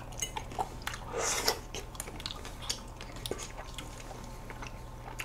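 Close-miked mouth sounds of eating ice cream cake off a spoon: soft wet smacks and small lip clicks, with one louder breathy sound about a second in.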